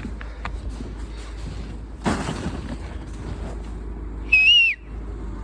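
Demolition with a mini excavator: an engine hums steadily under a few small knocks and one heavy crash of breaking or falling material about two seconds in. Near the end comes a short, high whistle lasting about half a second, the loudest sound; it holds, wavers and then drops in pitch.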